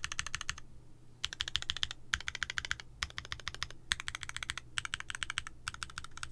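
Fast typing on a custom mechanical keyboard with frankenswitches (Gateron bottom housings, Cherry top housings) on an aluminium plate: quick runs of key clacks in short spurts with brief pauses between, stopping at the end.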